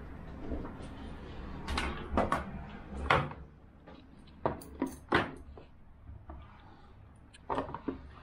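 Lacquered serving box and lidded lacquer bowls being set down on a wooden table: a scattering of sharp clunks and knocks, over a steady low hum.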